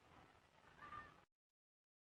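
Near silence: faint background hiss between calls, which cuts off to dead silence about a second in.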